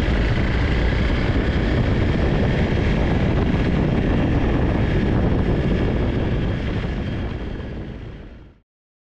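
Dual-sport motorcycle running at speed, a steady engine drone mixed with wind noise, fading out near the end.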